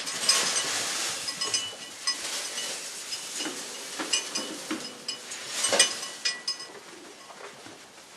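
A sheep's neck bell clinking and ringing irregularly as the flock jostles at feeding time, with the loudest clank about six seconds in.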